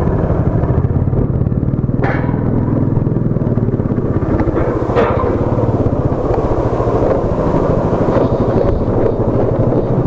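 Motorcycle engine running steadily while being ridden, picked up by a mic inside the rider's helmet.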